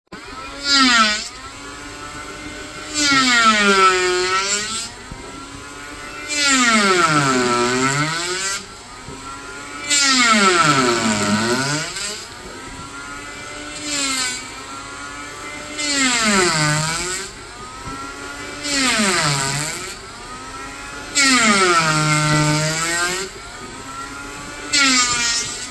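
Bosch electric hand planer making about nine cutting passes over timber. On each pass the loud cutting noise comes in and the motor's pitch drops under load, then rises back as it runs free between passes.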